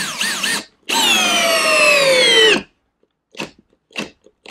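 Makita 18V sub-compact brushless drill driving a 3-inch screw into oak at high speed. After a brief stuttering start, the motor whine sinks steadily in pitch as it bogs down under the load, then cuts out abruptly about two and a half seconds in. A few short blips of the trigger follow.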